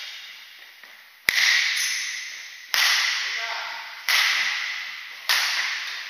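Badminton rackets striking a shuttlecock during a rally: four sharp hits about a second and a half apart, each ringing on in the echo of a large hall.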